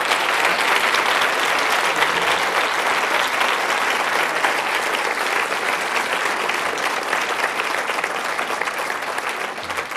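A large audience applauding, a dense continuous clapping that eases off a little near the end.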